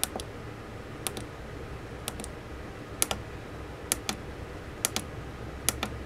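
Tactile push-button switches on a small circuit board being pressed and released about once a second. Each press gives a sharp double click, seven in all.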